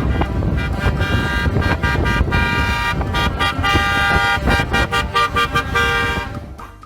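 Motor-vehicle sound with a horn tooting over an engine rumble, fading out near the end.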